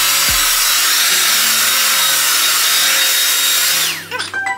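Hand-held hair dryer blowing, a loud rush of air with a steady high motor whine, used to stretch freshly defined curls. Near the end it is switched off and the whine falls away.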